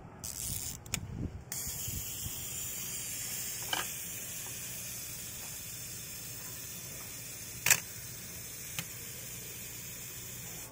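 Asahi Pentax Spotmatic 35mm film SLR handled by hand, giving a few sharp mechanical clicks. The loudest click comes about three-quarters of the way through. A steady high hiss sets in about a second and a half in.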